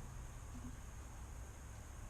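Faint steady low hum and hiss of background room tone, with one brief faint soft sound about half a second in.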